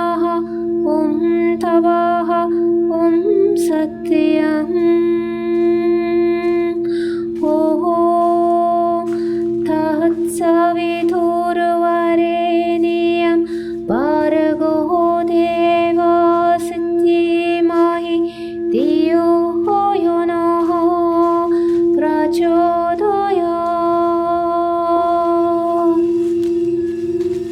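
Wordless singing, held notes with swooping slides between them, over a steady low drone that never stops.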